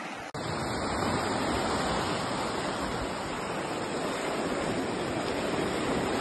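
Fast, churning water rushing against the concrete bank of a lined canal: a steady, even rush that starts suddenly a moment in.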